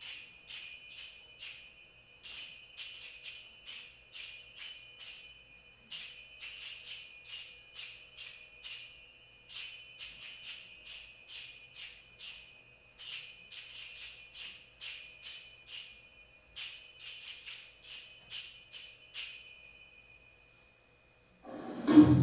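Finger cymbals (zills) played alone in rhythmic phrases of ringing metallic clicks, about three to four strikes a second, with short pauses between phrases. Near the end they stop, and loud accompanying music with drums and tambourine starts.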